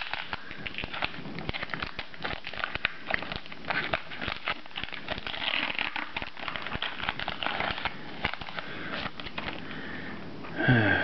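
Foil Pokémon booster pack wrapper being torn open and handled, crinkling and crackling with many small sharp clicks as the cards are pulled out.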